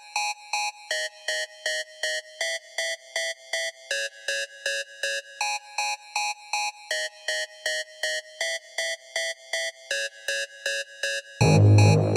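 Instrumental rap beat: a synthesizer repeats short, high chord notes about three times a second with no bass, then a heavy bass beat drops in near the end.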